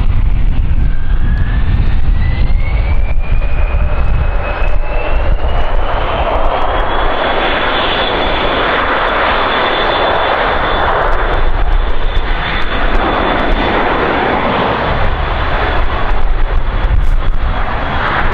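Three-engined Dassault Falcon business jet's engines spooling up for takeoff. A whine rises steadily for the first several seconds and then holds level at takeoff power, over the deep rumble and rush of jet noise.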